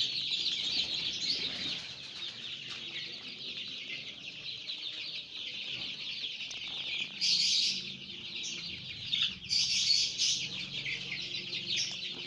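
Many 17-day-old joper (ayam kampung super) chicks peeping continuously, a dense overlapping chorus of high cheeps with two louder stretches in the second half.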